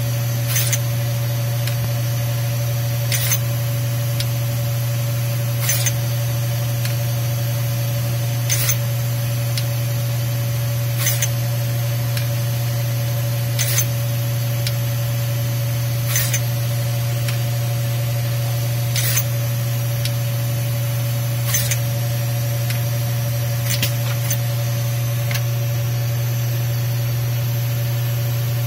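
Automated pick-and-place machine running with a steady low hum, broken about every two and a half seconds by a short, sharp hiss of air from its pneumatic head.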